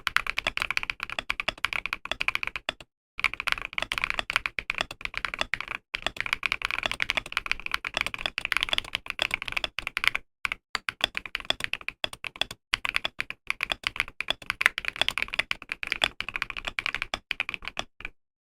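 Rapid typing on an Epomaker Mini Cat 68 stacked-acrylic mechanical keyboard with stock Epomaker Wisteria switches and a tape mod: a dense run of key clicks, with brief pauses about three, six and ten seconds in.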